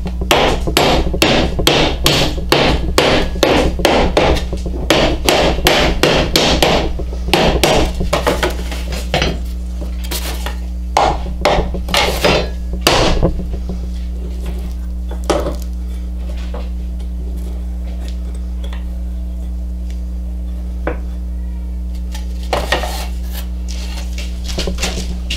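Wooden end-grain blocks being knocked into place in a clamped cutting-board glue-up: rapid sharp knocks, about three or four a second, for the first several seconds, then scattered knocks that stop about halfway through. A steady low hum runs underneath, and a few more knocks come near the end.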